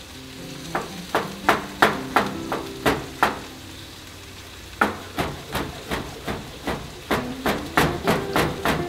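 Chef's knife chopping tomatoes on a cutting board: regular sharp knife taps on the board, about three a second. The taps start about a second in and pause for about a second and a half midway.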